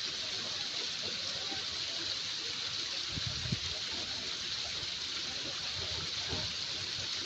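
Waterfall rushing steadily, a constant hiss of falling water, with a brief low knock about three and a half seconds in.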